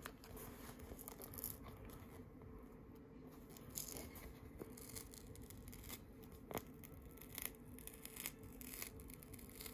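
Faint, slow tearing of a Topps Rip trading card's paper front as it is peeled back by hand. The tearing is scratchy and crackling, with a few small ticks in the second half.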